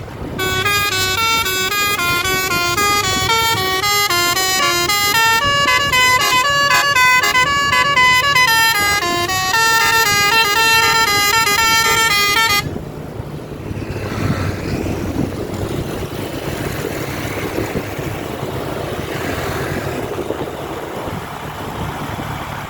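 Bus telolet horn playing a fast tune of stepping horn notes for about twelve seconds, then cutting off suddenly, leaving a steady noisy rumble.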